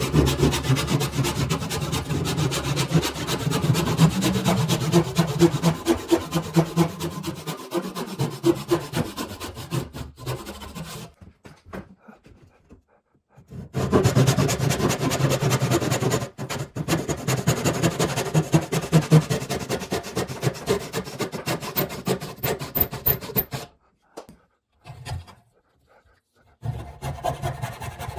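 Back saw cutting by hand into a softwood post, rapid rasping strokes sawing dovetails. The sawing stops for a couple of seconds about eleven seconds in and again a little before the end. Near the end a coping saw takes up the cut.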